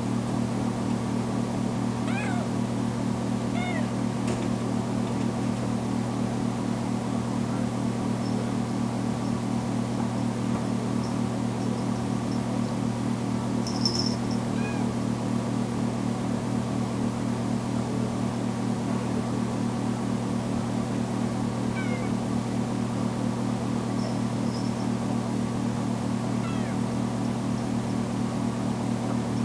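Young kitten meowing in a wire crate, a handful of short high meows scattered through, typical of a cat crying at being left alone after a spay. Under them runs a steady low hum, with one short sharp click about halfway.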